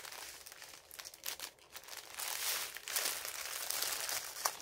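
Clear plastic bag of small bagged diamond-painting drills being handled, crinkling irregularly, busiest in the second half, with a sharp click near the end.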